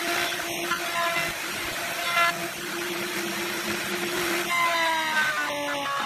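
Electric woodworking cutter's motor whining steadily with the rasp of wood being cut; about four and a half seconds in its pitch sags for a second or so as the blade bites into the wood under load.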